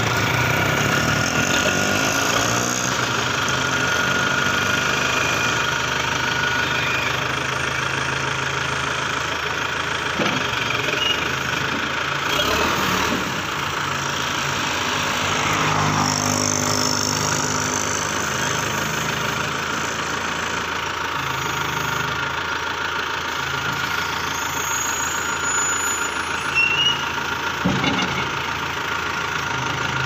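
Diesel engine of a BULL HD76 76 hp backhoe loader running while the front loader scoops and lifts its bucket, engine speed rising and falling in steps as the hydraulics take load. A few short knocks sound about two seconds before the end.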